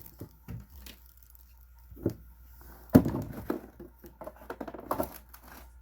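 Grocery bags and packaging rustling and crinkling as groceries are unpacked, with a few short knocks of items being handled, the sharpest about three seconds in.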